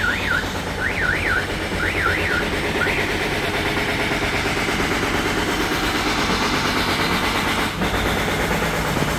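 Recorded steam-train sound effect played through the loudspeaker of a push-button display. A warbling whistle-like tone rises and falls about once a second for roughly the first three seconds. A steady rushing, rumbling train noise then carries on.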